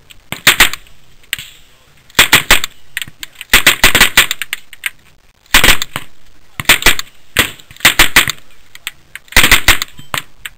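Submachine gun firing full-auto in short bursts, about eight bursts of rapid shots with brief pauses between them.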